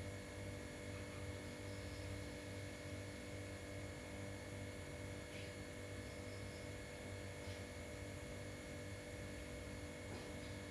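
A steady low electrical hum with a faint hiss behind it.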